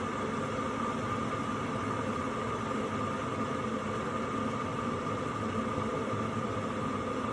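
Chefman electric kettle heating water: a steady hiss with a faint held tone and no change.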